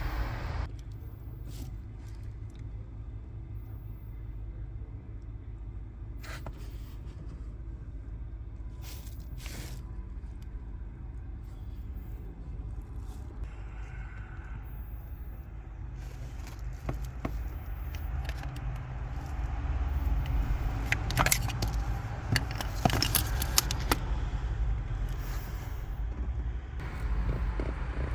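Car engine idling with a steady low hum. A few sharp clicks come about 6 and 10 seconds in, and a louder run of knocks and clicks comes about two-thirds of the way through.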